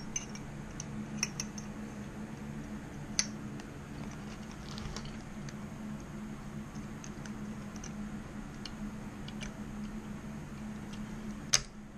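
Small metallic clicks and taps of hands working a piston and wrist pin onto a bike-engine connecting rod, with a sharper, louder click near the end. A steady low hum runs underneath.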